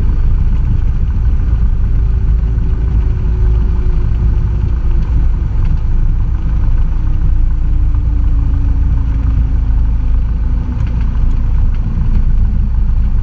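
Cessna 172's piston engine and propeller running at low power on the landing rollout: a steady low drone whose tone slowly falls as the engine winds down.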